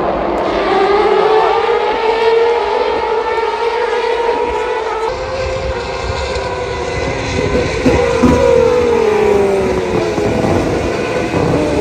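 Turismo Carretera race car engines running hard on the circuit, their pitch slowly rising and falling as the cars pass, with several engines overlapping in the second half.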